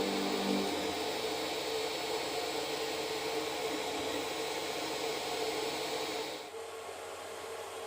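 Steady whir of an electric motor running, with a held hum under it; about six and a half seconds in it drops quieter and duller.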